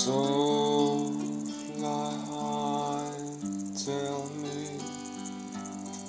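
Electric guitar played in held chords that change every second or two, with a man's voice singing along over the first few seconds.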